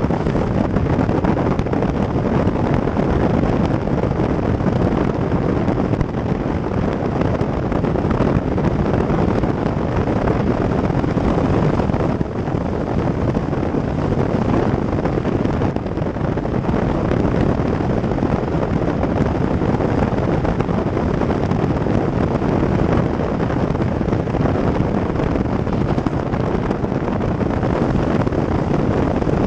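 Steady wind buffeting the microphone of a camera mounted on the outside of a moving car, over tyre and road noise on wet asphalt.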